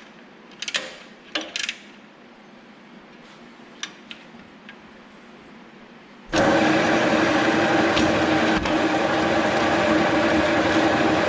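A few light clicks and knocks of hand work on the machine, then about six seconds in the MBO T49 buckle folder starts up suddenly and runs with a steady, loud mechanical whir while its new infeed belt is tested for tracking.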